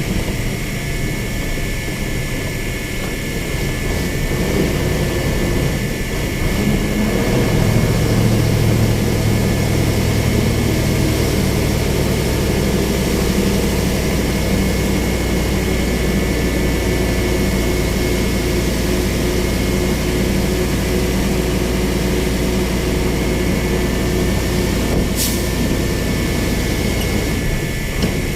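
Baler machinery running steadily: a continuous low engine drone with a thin, steady high whine above it, growing fuller and louder about seven seconds in. A single sharp click near the end.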